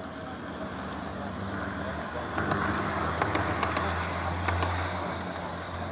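Garden-railway model Class 170 Turbostar train running past on outdoor track, with a low steady hum and a run of light clicks from the wheels over the track. It grows louder about two seconds in as the train passes close, then eases off.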